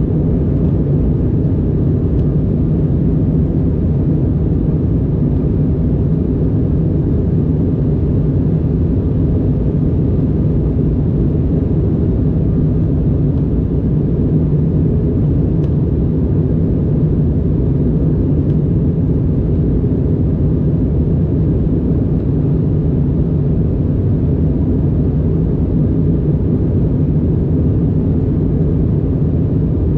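Regional jet airliner heard from inside the cabin: a steady, loud low hum of the engines and airflow that holds even throughout.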